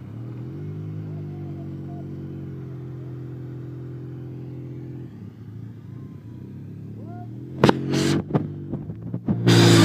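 Ski-Doo snowmobile engine running, its pitch rising about a second in and then holding steady before fading after about five seconds. A few sharp knocks come near the end, then a loud rushing noise starts just before the end.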